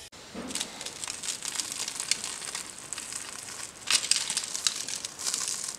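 Crunchy panko crust of a deep-fried Korean corn dog crackling as it is squeezed and pulled apart by hand. The crunch comes in several irregular spells, the loudest about four seconds in.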